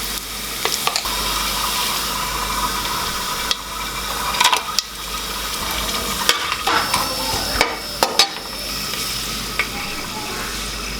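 Food sizzling in hot oil while it is stirred, with several sharp clicks of a spoon or spatula knocking against the metal pot.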